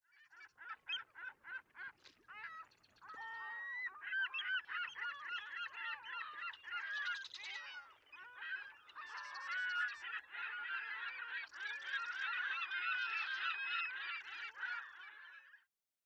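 A flock of birds giving honking calls, faint: a few single calls at first, then many calling over one another from about three and a half seconds in, stopping just before the end.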